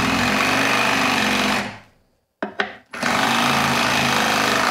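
Cordless reciprocating saw driving a fret crowning file rapidly back and forth across guitar frets, a steady mechanical buzz of the file cutting the fret wire to round over flat-topped frets. It stops about a second and a half in, a few short clicks follow, and it starts again about three seconds in.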